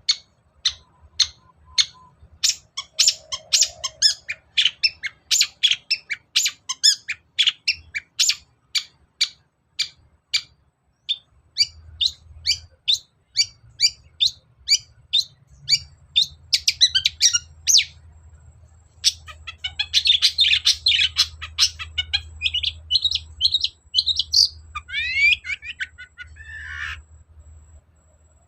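Long-tailed shrike (cendet) in full, vigorous song: a long rapid series of sharp, short high notes, about three to five a second, giving way after a pause to a dense scratchy chatter and a few downward-slurred notes near the end.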